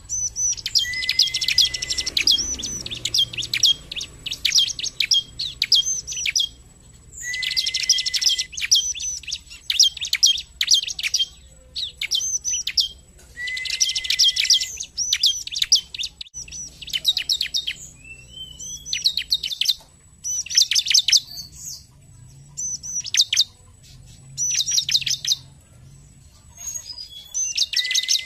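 Bar-winged prinia (ciblek) singing: bouts of a few seconds of rapid, high, sharp chirping notes, repeated with short pauses between them, some opening with a lower held note.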